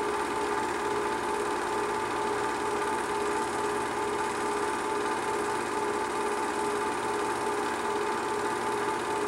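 Film projector running: a steady mechanical whir with a fine, rapid clatter and a constant hum.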